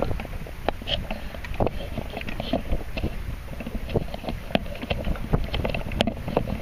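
Wind buffeting the microphone, a steady low rumble, with irregular small knocks and splashes of choppy water against a boat.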